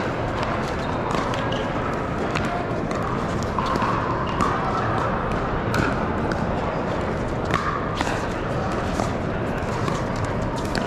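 Pickleball paddles hitting plastic balls in irregular sharp pops from several courts at once, over a steady din of background voices in a large hall.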